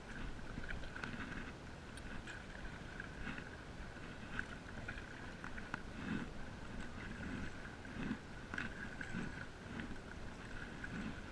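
Stand-up paddle strokes in calm water: the paddle blade dipping and pulling about once a second, with small splashes and drips. A faint steady high tone runs underneath.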